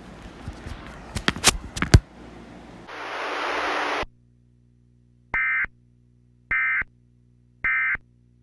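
Three identical short bursts of Emergency Alert System digital data tones, about a second apart: the SAME end-of-message code that closes the severe thunderstorm warning broadcast. Before them come loud crackling clicks and then about a second of static hiss.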